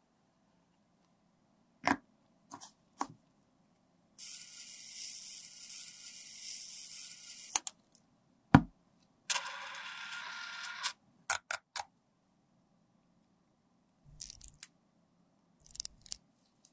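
Small handling sounds of cosmetic bottles and packaging: a few light clicks, a steady hiss of about three seconds, a sharp tap (the loudest sound), a second shorter hiss, quick clicks and faint rustles near the end.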